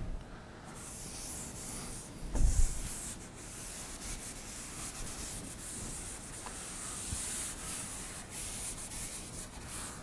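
Handwriting: a writing tool rubbing and scratching steadily across the writing surface as a diagram and equations are drawn, with one dull thump about two seconds in.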